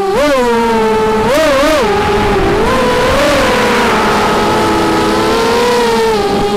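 Brushless motors and propellers of an Armattan F1-4B racing quadcopter (Cobra 2204 2300 KV motors), heard from its onboard camera: a buzzing whine whose pitch follows the throttle. It jumps sharply about a quarter second in and punches twice around a second and a half in, then holds steadier with small wavers.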